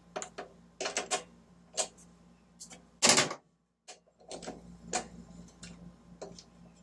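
Ratchet wrench clicking irregularly as a spark plug is unscrewed with a 21 mm magnetic spark plug socket on an extension. Scattered light ticks, with one louder knock about three seconds in.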